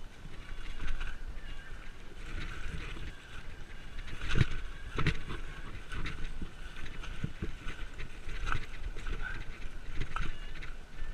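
Mountain bike riding down a dirt singletrack: tyres rolling over the trail, with the bike rattling and knocking over bumps, the hardest knocks about four to five seconds in.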